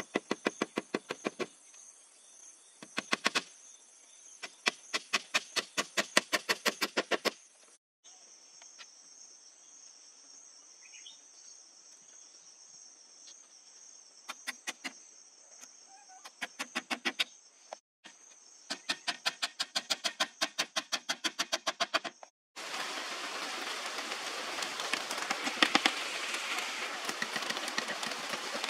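Runs of quick sharp knocks, several a second, from a knife chopping and trimming bamboo, over a steady high-pitched insect buzz. Near the end a dense, loud hiss takes over.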